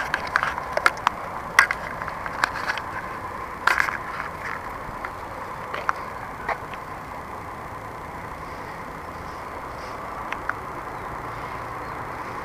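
Steady background hum of distant traffic. In roughly the first five seconds there is a run of sharp clicks and knocks from the handheld camera being handled and moved.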